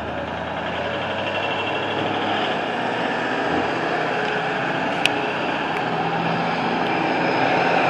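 Vehicle engine noise, a broad steady rumble that grows gradually louder, with a single faint click about five seconds in.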